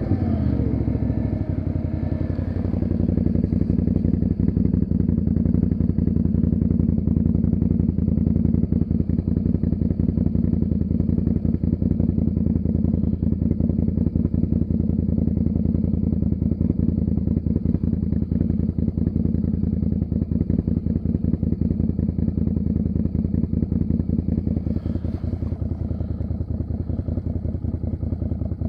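ATV engine dropping in speed and settling to a steady idle about two seconds in.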